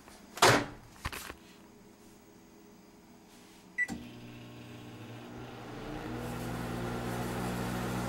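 Sylvania microwave oven: the door shuts with a knock about half a second in, a keypad beep comes just before four seconds, and then the oven starts running with a steady hum. Around six seconds in the hum grows deeper and louder.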